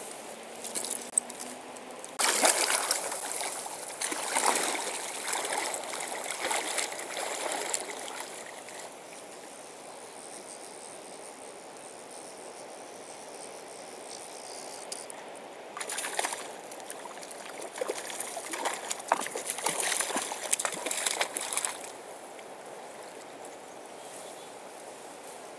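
Steady flow of a shallow river, with two stretches of splashing a few seconds long: one a couple of seconds in, the other past the middle.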